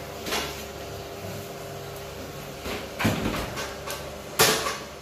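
Plastic tub and spoon knocking and scraping as shrimp paste is scooped out, in a few short bursts with the loudest near the end, over a faint steady hum.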